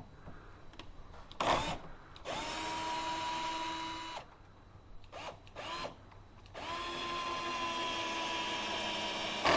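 Cordless power drill/driver working long screws into a wooden door jamb. It runs in two sustained pulls of about two and three seconds, each preceded by short trigger blips, and its whine rises as the motor spins up and then holds steady.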